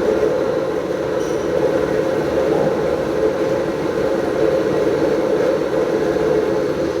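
Milling machine running steadily, a constant machine tone over a dense, even noise.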